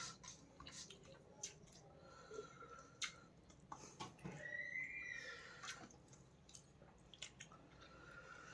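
Soft, wet chewing and mouth clicks of a person eating fish and rice, faint and scattered, with a short hum-like tone about halfway through.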